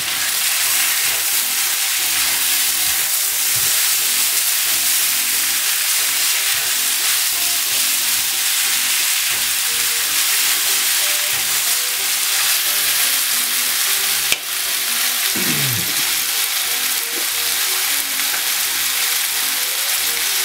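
Chicken pieces, onion and mushrooms sizzling in oil in a frying pan, with a plastic spatula stirring and scraping through them. A single sharp click about two-thirds of the way through.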